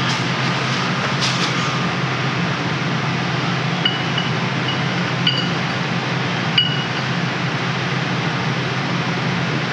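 Light metallic clinks of tools or small metal parts being handled, three or four times around the middle, over a steady background hum and hiss.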